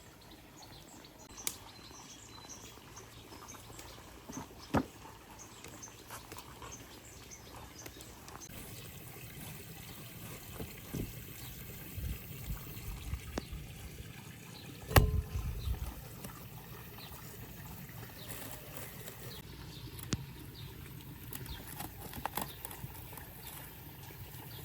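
Water trickling, with scattered knocks and one louder thump about fifteen seconds in. Faint bird chirps in the first third.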